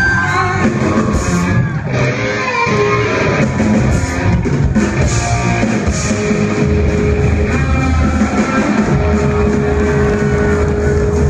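Rock band playing live: distorted electric guitar, drum kit and male lead vocals, with a long held note near the end.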